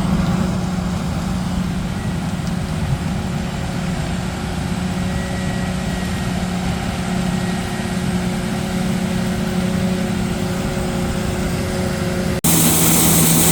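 Farm machinery engine running steadily during corn earlage harvest. About twelve seconds in, it cuts off abruptly to a louder, hissier machine noise.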